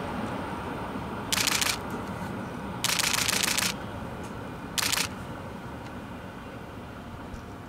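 Two coupled Chichibu Railway Deki 500-class electric locomotives running light, a low rumble that fades as they draw away, with no rail-joint clicks on the newly welded long rail. Three short, loud hisses cut in about one and a half, three and five seconds in.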